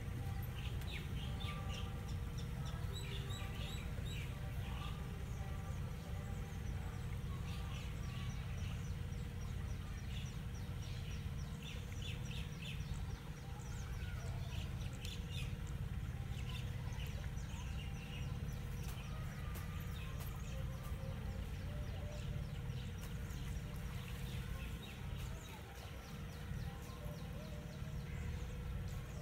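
Birds chirping in short, scattered calls over a steady low rumble and a faint steady hum.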